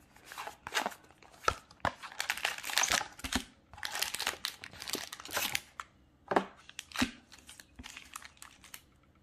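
Cardboard booster display box being opened: the lid and cardboard flap are pulled and torn back, with irregular rustling and sharp clicks, then the foil-wrapped booster packs crinkle as they are lifted out.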